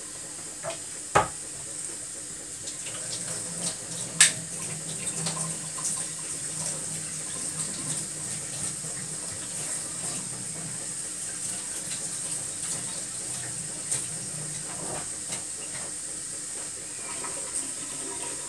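Pot of water with chicken pieces coming to the boil on a gas burner: steady bubbling that builds a little after the first few seconds, with two sharp clicks about a second and about four seconds in.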